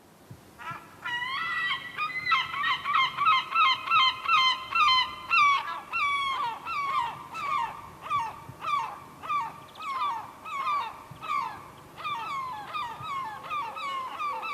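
Herring gull giving its laughing long call: a long series of loud, pitched calls, each dropping in pitch. The series starts about a second in, comes quickest and loudest early, at roughly three calls a second, then slows and grows a little quieter.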